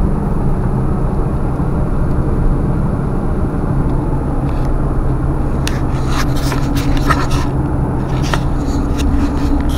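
Steady drone of engine and road noise heard inside a vehicle's cabin while it drives at speed. From about six seconds in, a few clicks and knocks as the camera is handled and turned.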